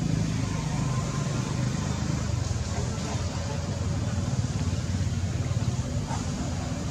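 Steady low rumble of an engine running nearby, with an even hiss above it.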